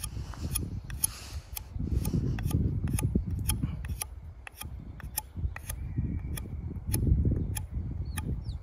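ESEE 6 survival knife shaving a spoon blank of green hazel wood, one cut after another, each stroke a short rough scrape.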